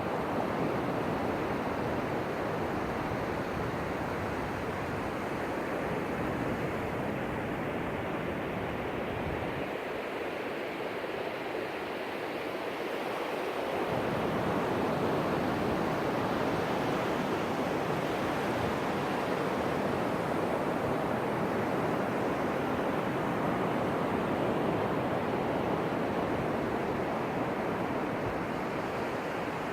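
Ocean surf breaking and washing onto a beach, a continuous rushing wash that grows louder about halfway through.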